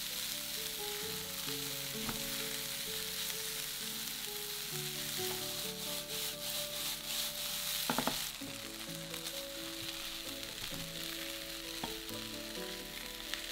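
Rice with diced chicken, carrot and onion sizzling steadily as it is stir-fried in a nonstick frying pan until the grains are dry and separate, with a few knocks of spatula and pan around the middle. Soft background music plays underneath.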